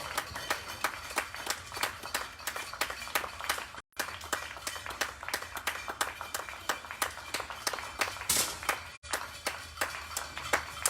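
Spectators clapping steadily, a quick run of sharp claps several a second, with two brief drop-outs.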